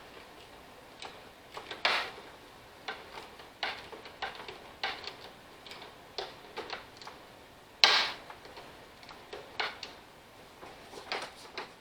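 Irregular clicks and light knocks of hand tools and metal parts being handled, with two sharper knocks about 2 seconds and 8 seconds in.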